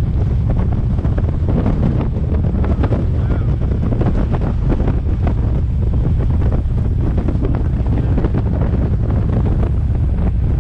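Wind buffeting the microphone as a steady, loud, low rumble, over the road noise of a car on the move.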